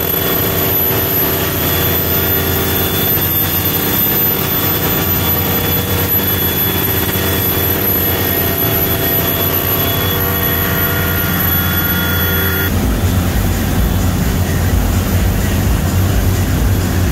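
Volvo Penta TAMD75EDC marine diesel machinery running steadily in the boat's engine compartment, with a high whine over the engine note. About 13 seconds in it changes abruptly to the heavier low rush of engine, wind and churning wake with the yacht underway at speed.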